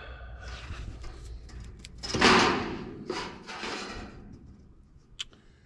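Scraping and rustling from hands working wiring along a sheet-metal air handler cabinet, loudest about two seconds in, with a short sharp click near the end.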